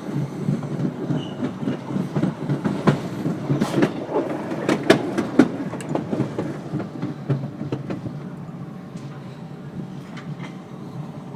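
Red Line rapid-transit train car running on the rails, heard from inside the car: a steady rumble with wheels clacking over rail joints, a dense run of sharp clacks and knocks a few seconds in, then quieter running near the end.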